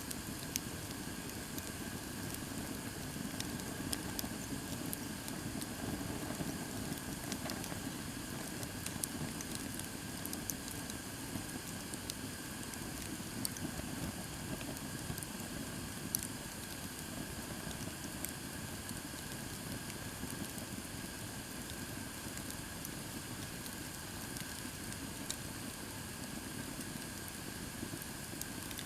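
Wood campfire burning with scattered sharp crackles and pops over a steady low rush.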